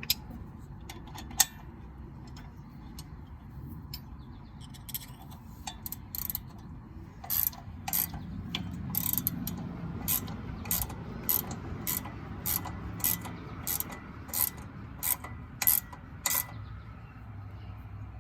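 Hand ratchet tightening the nylock nuts on sway bar disconnect mounting posts. It gives a few scattered clicks, then from about seven seconds a steady run of ratchet clicks, a little under two a second, that stops near the end.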